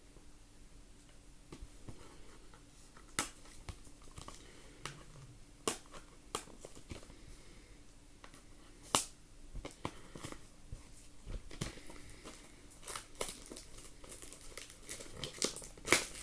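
Plastic wrapping crinkling and tearing in scattered sharp crackles, busier near the end: a sealed box of baseball cards being unwrapped.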